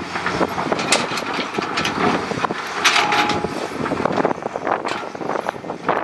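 Heavy construction equipment at work: an engine running under dense clattering and rattling, loudest about three seconds in.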